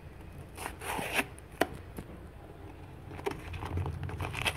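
Paper and masking tape being peeled and torn off a small homemade package by hand, in a few short rips and rustles.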